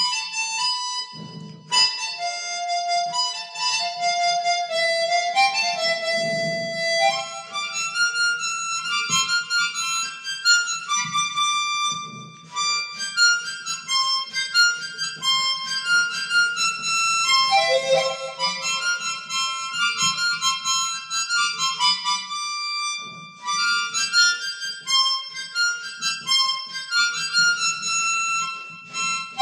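Harmonica played solo, close into a handheld microphone: a melody of held single notes moving from one to the next, with short breaks between phrases.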